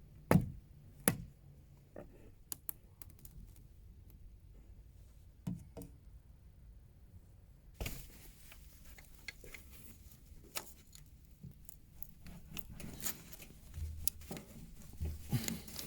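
Scattered light clicks and taps, with a few sharper knocks, as a new engine oil filter is handled and made ready to fit.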